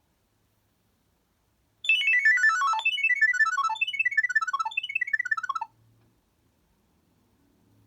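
Nokia 6230i mobile phone playing a polyphonic ringtone through its small loudspeaker. It plays a quick run of short notes falling in pitch, repeated four times, starting about two seconds in after silence and cutting off sharply near the end.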